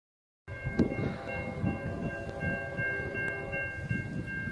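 A train rumbling past, with a locomotive horn sounding a steady high chord of several tones over it. It starts abruptly about half a second in, after dead silence.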